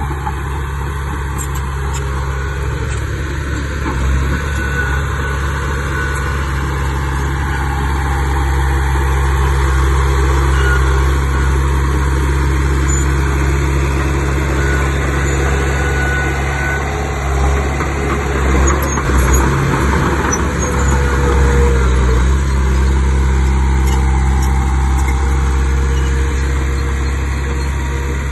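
Bulldozer's diesel engine running steadily at work, with a deep, constant drone and small swells in loudness as the load changes.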